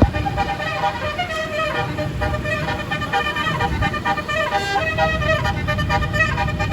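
Bus telolet horn, a Basuri multi-note air horn, playing a quick tune of changing notes over a low rumble.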